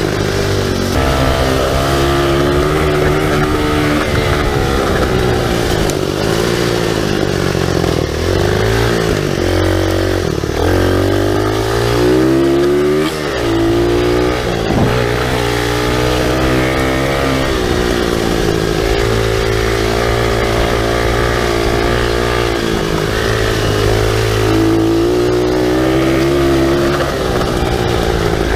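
SSR 125 pit bike's single-cylinder four-stroke engine running hard under way on a dirt trail. Its revs climb and fall again and again as the throttle is worked, with a brief drop about halfway through.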